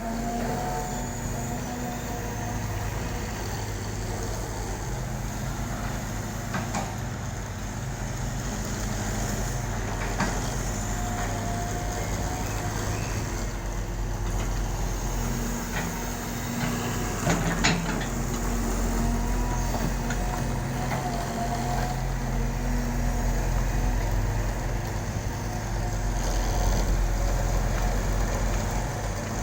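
Caterpillar excavator's diesel engine running steadily under load while it works soil, with a whine that comes and goes and a few short clanks, the loudest a pair about two thirds of the way through.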